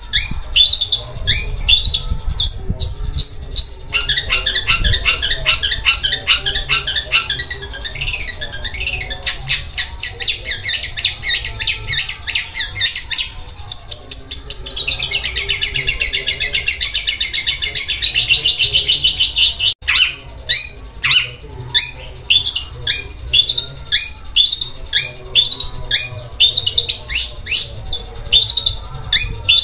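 Long-tailed shrike singing loudly and continuously: strings of sharp, fast, high notes, broken midway by about six seconds of an unbroken rapid rattle, a very rough sound like a sewing machine.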